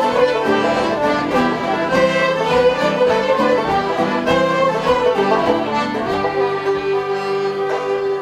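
Live Irish traditional session music: fiddles and a banjo, with a flute, playing a lively tune together, and one long held note near the end.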